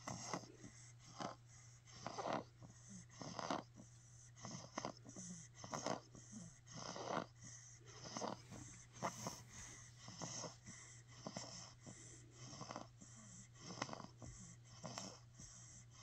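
Wheezy snoring in quick, even breaths, about one a second.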